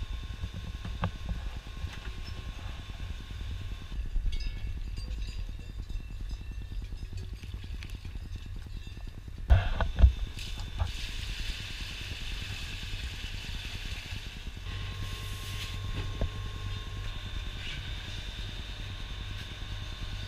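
Milking machine running with a steady hum from its vacuum pump. Halfway through, a metal bucket knocks loudly twice as it is handled on the floor.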